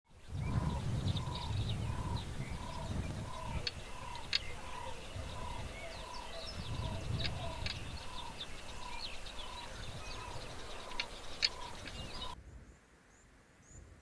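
Wild birds at a waterhole: one repeats a short single note about every 0.7 seconds while others chirp, over gusts of wind rumbling on the microphone. A little before the end the sound drops suddenly to quieter wind.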